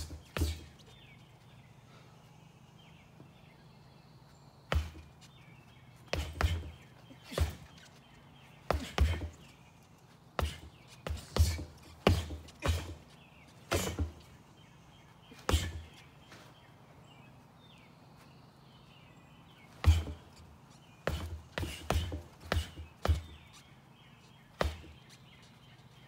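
16 oz boxing gloves punching a stack of rubber tyres: dull thuds, singly and in quick combinations of two to five, with pauses of a few seconds between.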